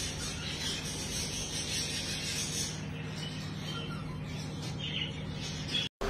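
English budgerigars chirping softly over a steady hiss and low hum, with a few short chirps standing out about three to five seconds in.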